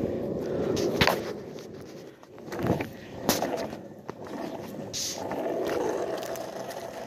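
Skateboard sounds: a few sharp clacks and knocks of the board, with a stretch of wheel rolling noise about five seconds in.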